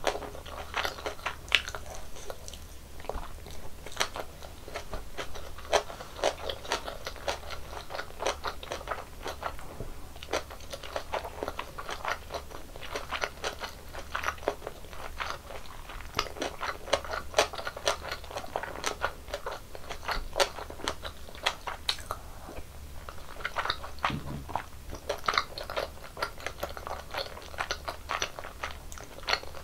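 Close-miked eating sounds of tteokbokki and mini gimbap: biting and chewing, with a dense, irregular run of small wet clicks and crunches.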